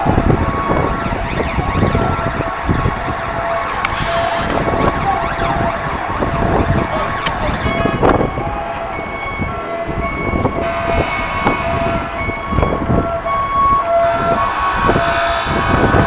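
Distant emergency-vehicle siren, its steady held tones switching on and off, over a continuous rush of city noise.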